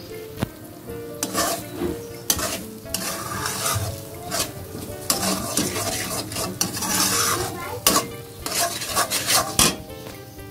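Slotted metal spatula stirring and scraping eggs and onions around a metal kadai, with repeated scrapes and clinks of metal on metal over the sizzle of the eggs frying in oil.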